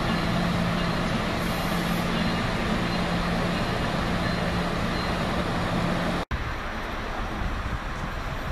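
Passenger train rolling past on the rails as it accelerates, a steady rumble with a low hum. About six seconds in it cuts off abruptly, then a quieter rumble as the train recedes into the distance.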